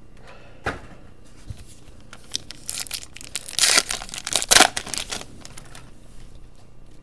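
Trading-card pack wrapper being torn open and crinkled, a flurry of tearing and crinkling strokes in the middle, after a single click.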